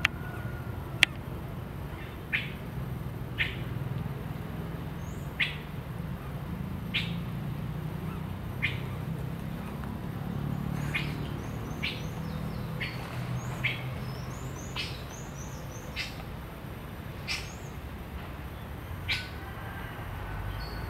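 Rufous-tailed jacamar giving short, sharp call notes, one every second or two, with a few faint high chirps in the middle.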